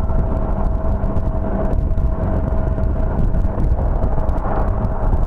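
Motor scooter running at a steady cruising speed, heard as a loud low rumble of engine and wind on the camera microphone with a steady whine over it.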